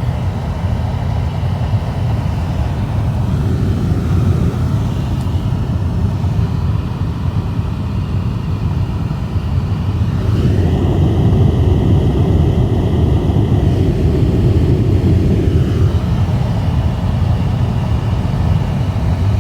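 A Toyota Crown GXS12 running with its heater/air-conditioning blower fan on, giving a steady rumbling whir. About ten seconds in the fan's whine rises in pitch and gets louder, holds for about six seconds, then drops back.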